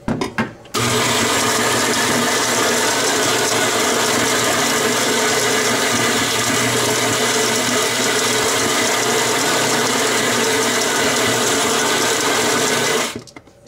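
Isomac Macinino Professionale coffee grinder's motor running steadily as it grinds espresso beans, after a few clicks in the first second. It stops abruptly shortly before the end.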